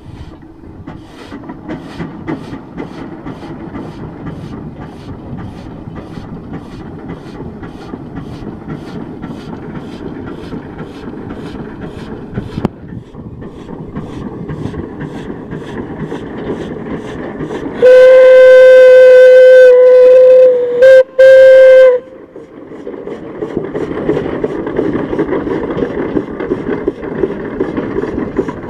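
1910 Minneapolis 22hp steam traction engine running, its exhaust chuffing at a steady beat, about two puffs a second. About two thirds of the way through, its original steam whistle blows loud for about four seconds, broken twice near the end.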